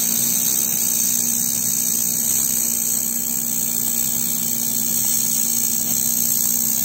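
Handheld laser welding of 16 mm carbon steel: a steady hiss from the weld and its shielding gas, over a constant low machine hum.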